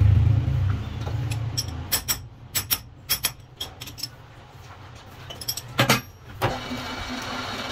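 Steel chuck key clinking against a lathe chuck as the jaws are tightened onto a steel blank: a string of sharp metallic clicks. Near the end the lathe motor starts and the chuck spins up with a steady hum.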